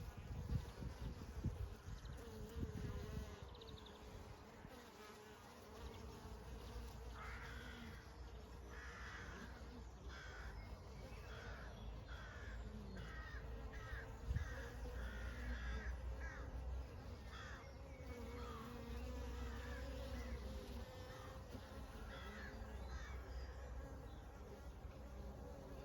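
Honey bees buzzing in a steady, wavering hum. From about a quarter of the way in, a bird calls over and over, about once a second, for some ten seconds. A low rumble sits under the first few seconds.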